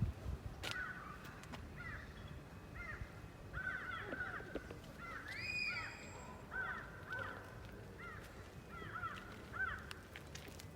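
Crows cawing over and over, short harsh calls one after another, with one longer, louder caw about halfway through.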